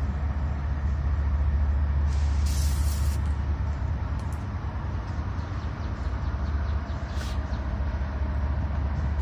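Dremel rotary tool running steadily with a low hum as it works rust off seized pliers. A brief hiss about two and a half seconds in.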